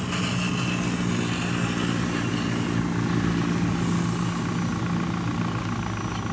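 A steady motor drone holding one low pitch, easing off slightly near the end.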